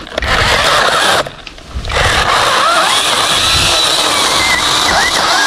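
KEELAT cordless mini electric chainsaw cutting into a longan tree trunk. The motor and chain run loud for about a second, ease off briefly, then run on steadily under load, with a whine that wavers in pitch as the chain bites into the wood.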